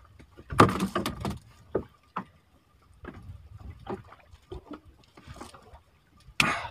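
Scattered knocks and bumps on a small wooden boat as a handline is handled over the gunwale, with a louder rustling rush about half a second in and another near the end.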